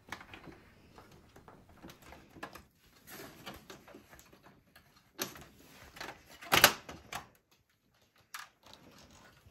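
The plastic top cover of a Macintosh II case being lifted off and handled: scattered clicks, scrapes and rustling, with the loudest knock about two-thirds of the way through.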